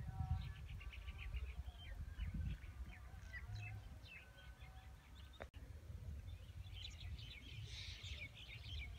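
Birds chirping in the fields, many short calls overlapping, thickening into a dense chatter near the end. Under them runs a low, uneven rumble of wind on the microphone.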